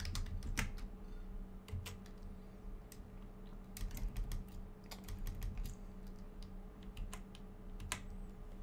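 Computer keyboard keys clicking in short irregular runs as someone types, over a faint steady low hum.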